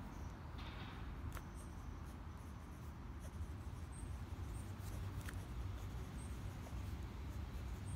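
Pen scratching across notebook paper as a line of handwriting is written, over a steady low rumble. A few faint high chirps come through now and then.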